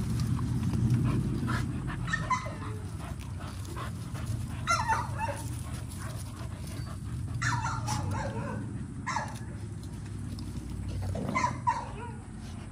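American bully dogs play-fighting, giving short barks and yips in separate bursts every couple of seconds. A steady low hum runs underneath.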